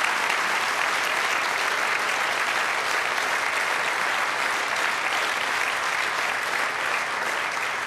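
A large audience applauding, steady sustained clapping.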